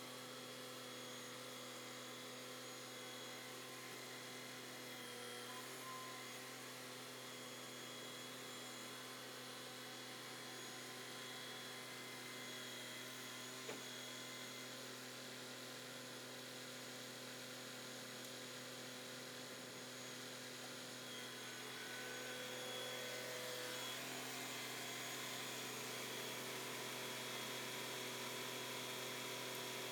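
Steady machine hum made of several even tones over a faint hiss, stepping up a little in level about two-thirds of the way through.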